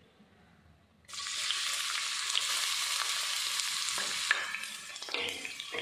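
Sliced onions dropped into hot olive oil in a cast iron kadai, sizzling loudly from about a second in, with a few sharp clicks near the end as the steel plate is emptied.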